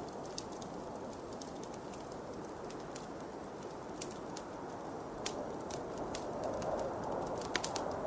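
Wood fire crackling, with irregular sharp pops that cluster near the end, over a steady low rushing of wind.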